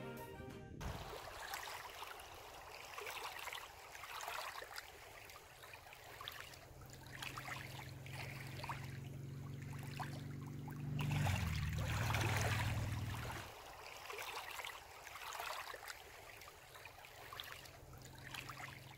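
Small waves lapping and washing at the water's edge, rising and falling every second or two, with wind rumbling on the microphone, louder for a couple of seconds past the middle.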